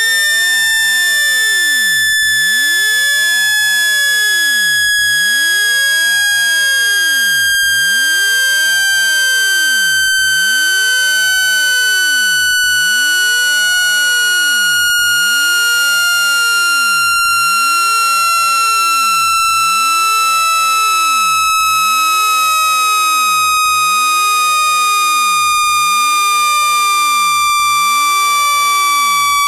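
Speaker-cleaning tone meant to vibrate dust out of a phone speaker's grille: one loud, steady electronic tone with overtones, sliding slowly and evenly down in pitch, with a faint tick about every two and a half seconds.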